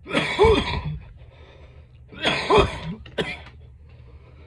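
A person coughing hard right after a deep hit from a vape mod: a long cough fit at the start, another about two seconds in, and a short single cough just after.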